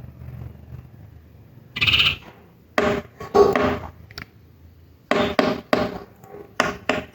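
Birds calling with harsh, repeated notes: a single call about two seconds in, a cluster of calls a second later, then a quick series of short notes, about four a second, from about five seconds in.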